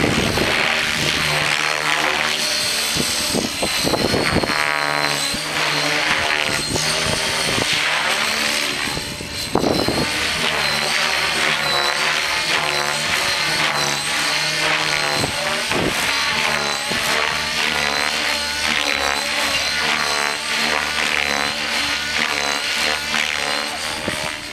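Align T-Rex 600EFL Pro electric RC helicopter flying: the rotor blades and a high motor whine, both sliding up and down in pitch as it manoeuvres, with gusts of wind buffeting the microphone.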